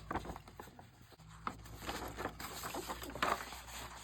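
Paper rustling and crinkling in irregular bursts as loose sheets of journaling paper are handled and shuffled.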